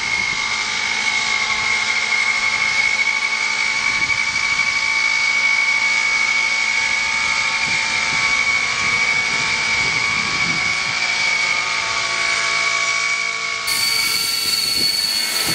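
Hirobo Sceadu Evolution 50 nitro RC helicopter, with its O.S. .50 SX Hyper glow engine, running steadily at hovering speed with a constant high whine. Near the end a second, higher whine joins in.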